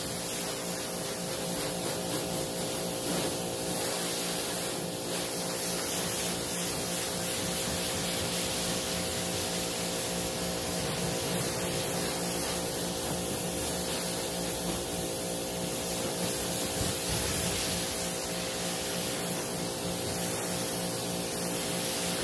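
Water spraying from a pistol-grip hose nozzle onto a car's hood, a steady hiss. A steady hum with several tones runs underneath it.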